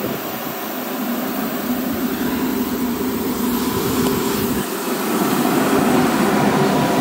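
Freight train hauled by ÖBB electric locomotives rumbling out of a tunnel and running past close by, a steady rumble that grows louder about five seconds in as the locomotives go past.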